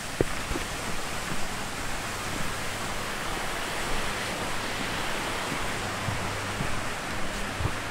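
Mountain stream rushing and cascading over rocks: a steady, even rush of water, swelling a little partway through. A couple of light knocks sound over it.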